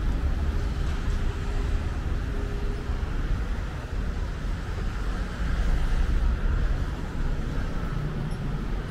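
Steady, low rumble of city street traffic.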